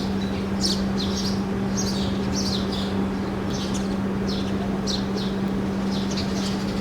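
Birds chirping: short, high, downward-sweeping chirps repeated about every half second, over a steady low hum.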